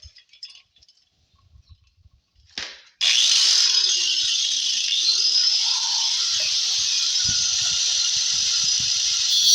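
Quiet handling clicks and a brief burst, then about three seconds in an electric power tool starts and runs steadily, cutting into the wooden subwoofer box with a loud high-pitched whir.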